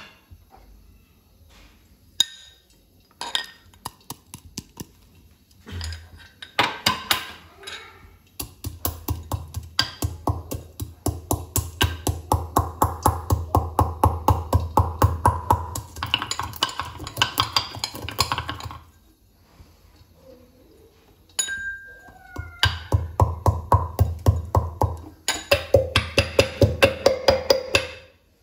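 A metal pestle pounding in a small steel mortar, in rhythmic ringing metallic strikes about four a second. There are two long runs with a pause of a few seconds between them.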